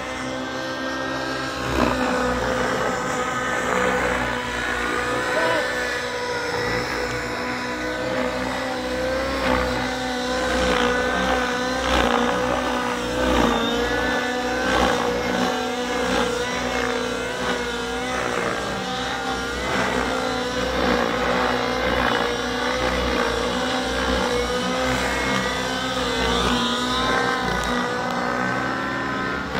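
Two 700-class radio-controlled helicopters in flight, one an Align T-Rex 700 Nitro: a steady engine-and-rotor whine whose pitch wavers up and down as they manoeuvre.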